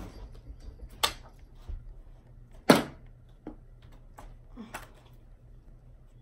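Thrown playing cards landing with sharp slaps and taps, three clear ones about two seconds apart with fainter ticks between; the loudest comes near the middle.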